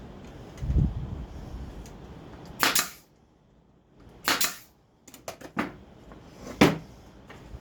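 Pneumatic brad nailer firing three times, each shot a sharp crack with a short burst of air, with lighter clicks between shots. A low thump comes near the start.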